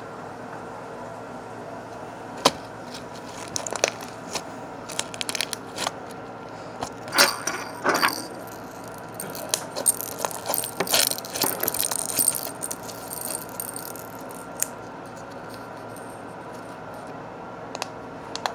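Handling noise of small objects moved close to the microphone: scattered clicks, rattles and scrapes, thickest in the middle, over a steady background hum.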